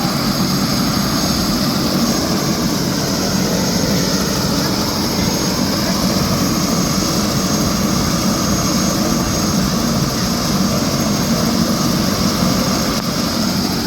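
Helicopter running on the ground with its rotor turning: a loud, steady rush of rotor and engine noise with a thin, high, steady whine above it.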